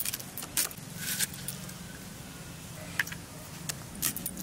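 An onion being peeled and sliced against the blade of a boti: a few short, crisp cutting strokes in the first second, a single click about three seconds in, and more cuts starting near the end.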